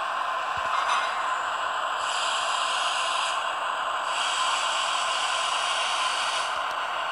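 Sound decoder in a Rivarossi E402 model electric locomotive playing a steady hissing machinery sound through its small speaker. A higher hiss comes in about two seconds in and again about four seconds in, each time for a second or two.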